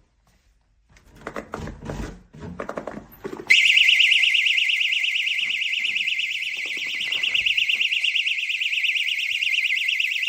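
SABRE wedge door stop alarm sounding its shrill, rapidly warbling siren, set off by the door pushing against the wedge. It starts suddenly about three and a half seconds in, holds steady and cuts off right at the end. Before it come a few knocks and rattles from the door being opened.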